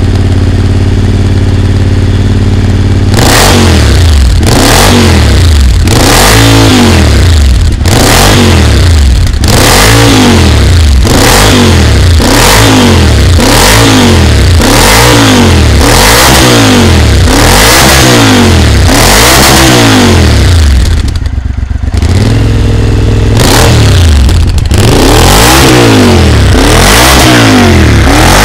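Triumph Scrambler 900 parallel-twin engine breathing through a GPR exhaust, idling for about three seconds and then blipped over and over, about once a second, each rev rising and falling back. It settles to idle briefly about three-quarters of the way through before the blips resume.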